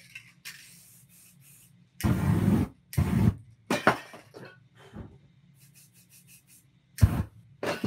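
Aerosol spray-paint cans hissing in short bursts, with two longer, louder whooshes about two and three seconds in as the wet paint on the canvas is set alight and flares up.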